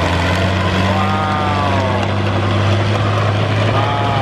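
Fiat 1000 DT tractor's six-cylinder diesel running steadily under load as it pulls a rotary tiller through the soil. A fainter higher tone rises and falls over it twice.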